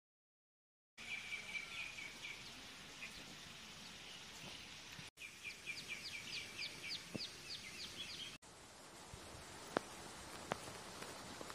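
Small birds chirping and trilling over faint outdoor background noise, with a fast run of about eight chirps a second in the middle. The sound cuts off abruptly twice, and a few sharp ticks come near the end.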